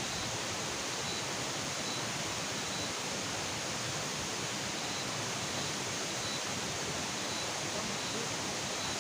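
Steady, even rushing hiss of outdoor night ambience, with a faint high chirp repeating about once a second.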